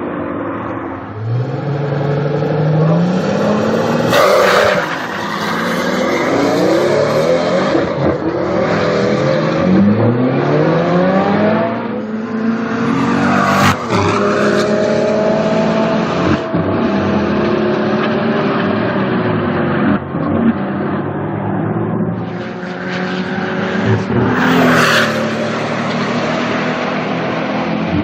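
Pagani Huayra BC's twin-turbo V12 accelerating hard, its pitch climbing again and again through the gears and dropping back at each upshift. Three sharp cracks stand out, about four seconds in, near the middle and near the end.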